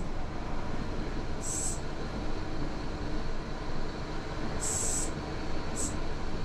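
Cabin noise of a Mercedes O403 coach driving on a wet road: a steady engine and road rumble, with a few short high hisses.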